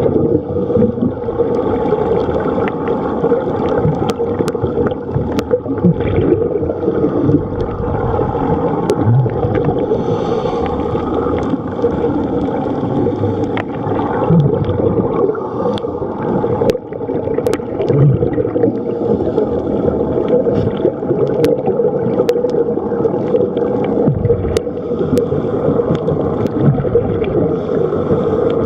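A steady, muffled drone holding one low pitch, with scattered faint clicks.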